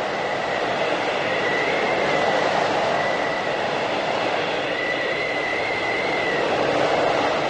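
Whiteout blizzard wind blowing steadily, with a high whistling howl that wavers, fades and returns, and gusts that swell and ease.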